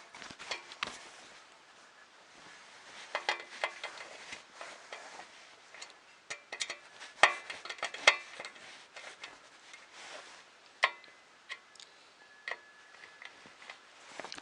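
Irregular clicks, taps and light knocks of the Vector 3 printer kit's X-axis parts being handled and fitted together, some with a brief ringing tone, the busiest stretch around three and seven to eight seconds in.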